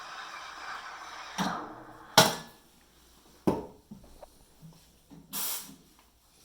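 Espresso machine steam wand hissing, cutting off about a second and a half in, the end of milk steaming. Then three sharp knocks, the loudest about two seconds in, a few light clicks, and a short half-second hiss near the end.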